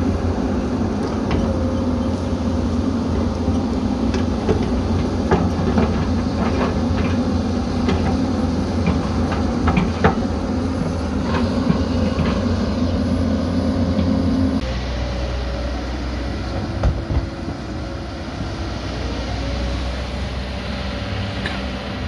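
Hyundai 220 crawler excavator's diesel engine running steadily under digging load, with scattered knocks and clicks as the bucket works the soil. About two-thirds through, the sound changes suddenly to a Kobelco SK220 excavator's engine, slightly quieter, with a single thump.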